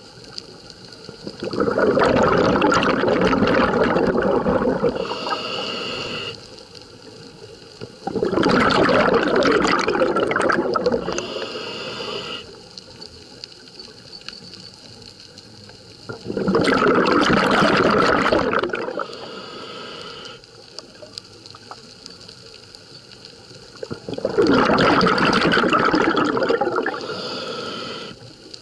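Scuba diver breathing through a regulator underwater: four breath cycles about eight seconds apart, each a loud rush of bubbles lasting two to three seconds and ending in a shorter, higher hiss, with quiet gaps between.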